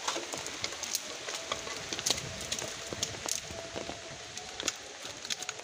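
Light rain pattering: a steady hiss with scattered, irregular drop ticks.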